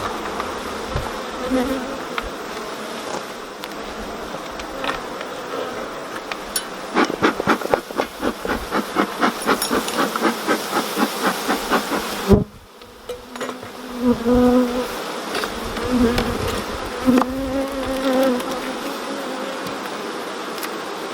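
Honeybees buzzing around an open hive of a queenless colony with a laying worker, individual bees droning close past with wavering pitch. Partway through comes several seconds of rapid, regular clicking, then the sound drops sharply for a moment before the buzzing resumes.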